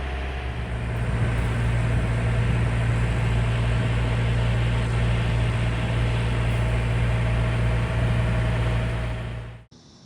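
Boat engine running steadily under way, its hum stepping up in pitch about half a second in as the revs rise, with a hiss of wind and water over it; the sound cuts off suddenly near the end.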